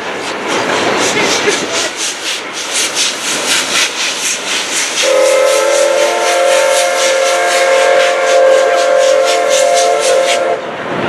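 Oigawa Railway's C11 steam tank locomotive working hard under load, its exhaust beating in a quick, even rhythm. About halfway through it sounds a long whistle blast of several seconds that cuts off sharply near the end.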